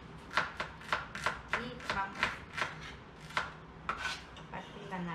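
Kitchen knives chopping vegetables on cutting boards: irregular sharp knocks of the blades striking the boards, about two or three a second.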